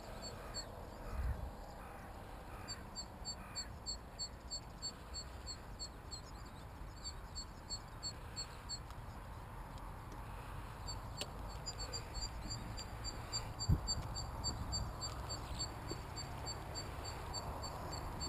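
A faint animal call: short high chirps repeating about three times a second, in stretches with short gaps, over a low wind rumble on the microphone. One short low thump about two-thirds of the way through.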